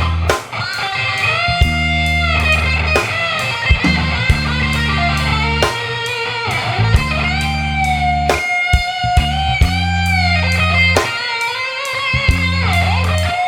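Electric guitar playing a slow blues solo, with long held notes that bend up and waver with vibrato, over a backing of bass and drums keeping a steady beat.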